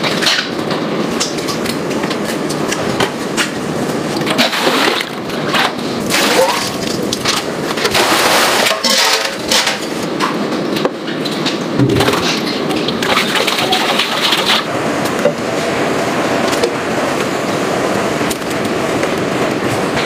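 Busy food-factory noise: continuous clattering and rattling of machinery and steel bowls, with water churning in an industrial washing tank partway through.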